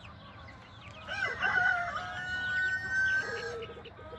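A rooster crows once, a long drawn-out call of about two seconds starting about a second in, over the constant high peeping of a flock of six-week-old chicks.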